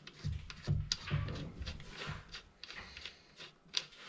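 Irregular small metal clicks and scrapes as a bolt is fitted by hand into the cast casing of a Tofaş four-speed gearbox, with a few soft knocks.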